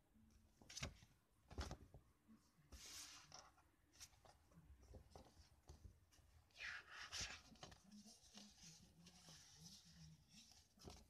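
Faint rustling of paper pamphlets being handled and turned over, with a couple of soft taps near the start and two louder rustles about three and seven seconds in.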